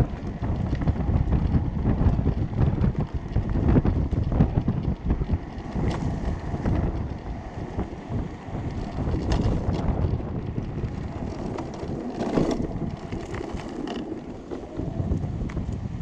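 Wind buffeting the microphone over the rumble and rattle of a homemade electric go-kart, driven by hoverboard hub motors, rolling over a paved path, with many small knocks from bumps in the surface.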